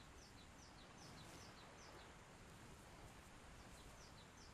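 Faint outdoor ambience of a small bird chirping: short, high, falling chirps, often in pairs, repeated a few times a second over near silence.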